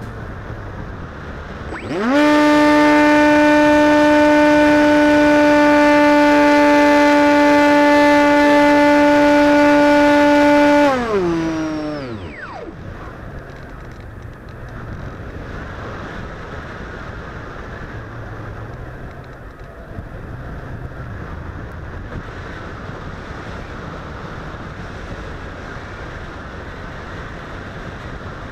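Motor and propeller of an RC airplane, heard from the plane's onboard camera. About two seconds in it quickly spools up to a steady high hum. Near the middle it is throttled off and winds down, its pitch falling. For the rest it glides with only the rush of air over the plane.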